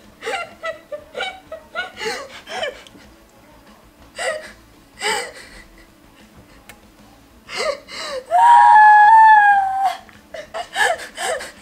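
Women laughing uncontrollably: short breathy bursts of laughter and gasps, with a long high-pitched squeal of laughter lasting nearly two seconds about eight seconds in, then more gasping laughs.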